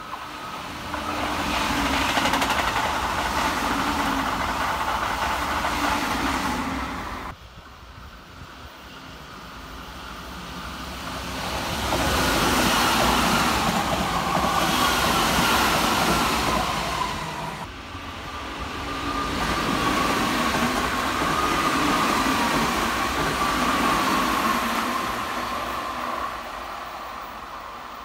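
Keihan electric trains passing at speed close to the platform, three passes one after another: the rumble and rattle of wheels on the rails, with a motor whine that slides down in pitch. The sound breaks off abruptly about seven seconds in and again a little past halfway, where one pass ends and the next begins.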